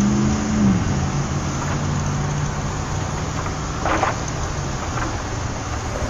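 A motor vehicle's engine running with a steady low hum, its pitch dipping slightly about a second in.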